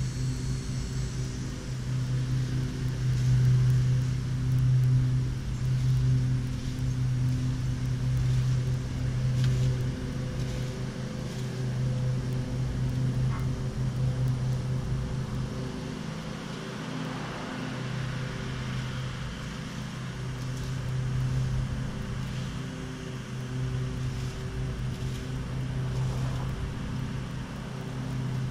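A small engine running steadily, a low hum that swells and eases slightly in loudness.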